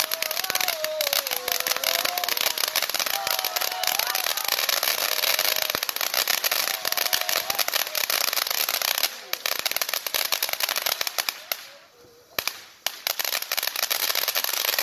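Ground fountain firework spraying sparks with a dense, continuous crackle of many small pops. It drops out briefly about twelve seconds in, then crackles again.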